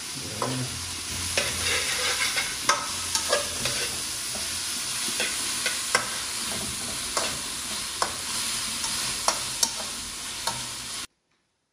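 Chopped peppers and onion sizzling in hot oil in a wok, stirred with a metal slotted spatula that scrapes and clicks against the pan again and again. The sound cuts off suddenly near the end.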